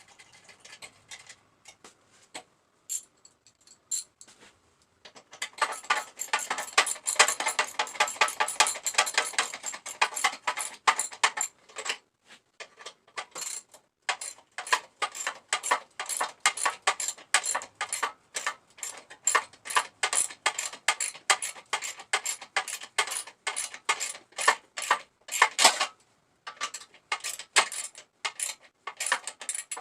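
Ratchet wrench clicking in quick runs of sharp metallic clicks while a tail light bolt is turned in, the clicks thickest for several seconds after a quiet start.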